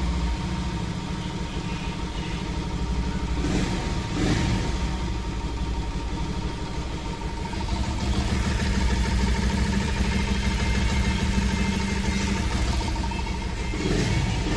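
Bajaj Pulsar 150's single-cylinder air-cooled engine running steadily just after an oil change, with brief rises in revs about four seconds in and again near the end.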